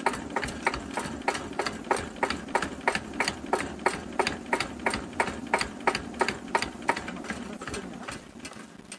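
Cunewalder single-cylinder evaporative-cooled diesel engine running at a very slow idle of about 500 rpm, the throttle held back by hand at the injection pump. It gives an even, slow knock of about four firing strokes a second, which weakens near the end.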